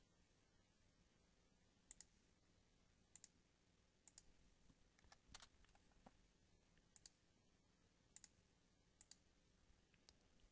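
Faint computer mouse clicks, about a dozen scattered short clicks, some in quick pairs, over near-silent room tone.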